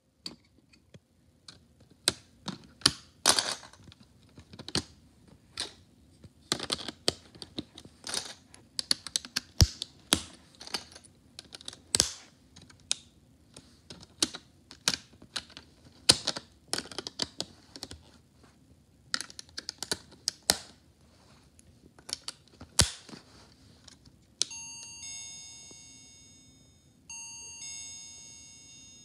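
A run of sharp clicks and knocks from handling the snap-together plastic circuit parts. About 24 seconds in, an electronic tune of chime-like tones plays from the kit's small speaker, twice, each time fading away.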